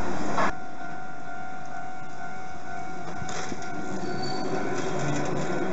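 Hankai Tramway Mo 351-type tram rolling slowly over a flat track crossing, with a steady, high, thin wheel squeal over the running noise. A louder noise cuts off abruptly about half a second in.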